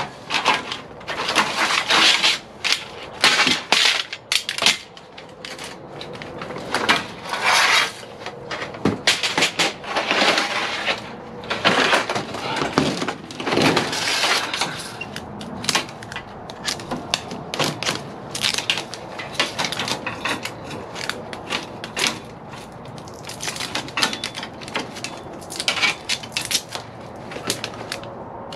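Aluminum extrusions clattering and scraping against each other as the pile is handled, a rapid irregular run of metal knocks and rattles. About halfway through it thins out to scattered lighter clicks and taps.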